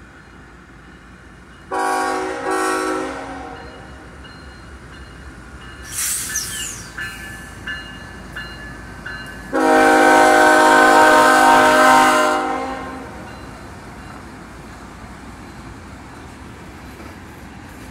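Diesel freight locomotive horn sounding for a grade crossing: two short blasts about two seconds in, then one long, loud blast about ten seconds in. Between the blasts and after them the passing train rumbles, with a few brief high wheel squeals.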